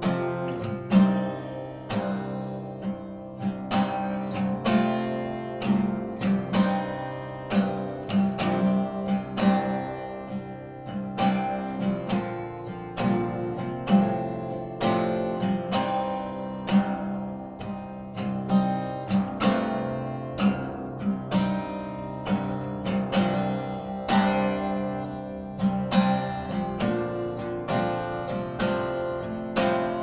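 Acoustic guitar played solo, a steady run of strummed and picked chords with the notes ringing on between strokes.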